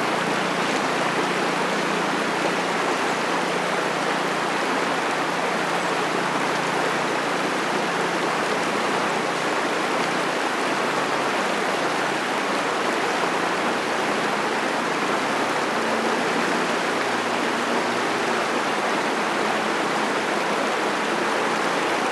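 Creek water rushing steadily over a rocky shoal in a small rapid.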